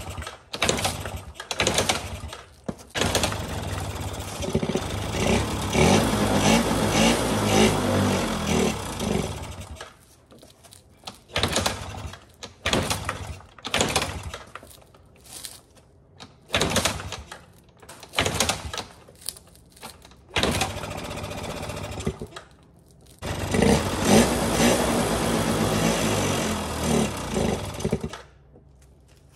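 Yamaha Razz 49cc two-stroke scooter engine being started over and over: it fires in short sputtering bursts, twice catches and runs unevenly for several seconds, then dies each time. It wants to run but won't stay running.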